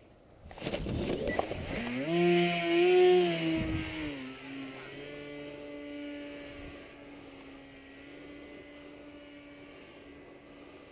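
Paramotor engine flying past: a steady engine drone that is loudest about two to three seconds in, drops in pitch as it goes by about four and a half seconds in, then fades away. A short rush of noise comes just before the engine.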